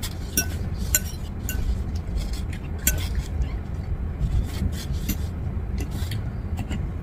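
A fork clinking and scraping against a salad bowl, with irregular sharp clicks as salad is stabbed and tossed, over a low steady hum.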